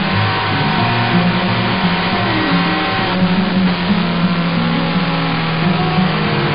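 Background music with a bass line that steps between notes.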